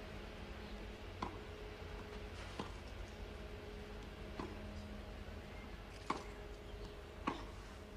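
Tennis rally on a clay court: five sharp racket strikes on the ball, one every second or two, over a faint steady hum.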